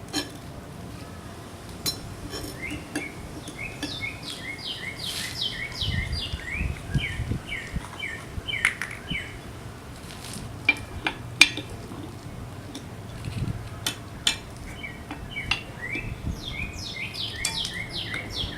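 A songbird sings two runs of quick falling notes, one in the first half and one near the end. Sharp metal clicks and clinks come throughout as the plastic lug nut covers are worked off the wheel, the loudest about halfway through.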